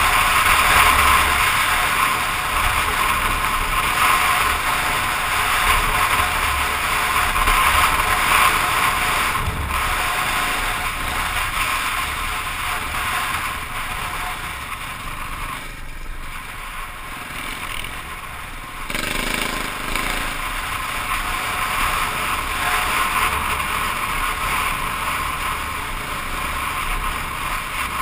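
KTM dirt bike engine running under way, with wind buffeting the microphone of a helmet-mounted camera; it eases off a little past the middle and picks up again about two-thirds of the way through.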